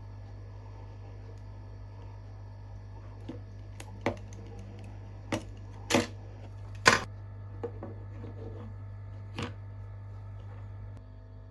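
About half a dozen sharp clicks and taps of small hand tools on the circuit board, the loudest about seven seconds in, while the broken USB socket is being removed. A steady low hum underneath stops just before the end.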